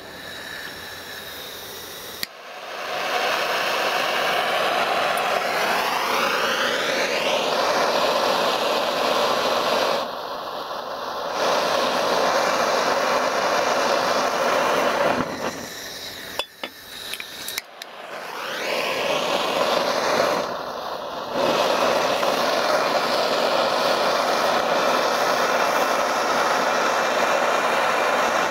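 Handheld gas torch burning with a steady hiss while melting a 3D-printed wax cube, its tone sweeping up and down at times. The sound drops out briefly a few times.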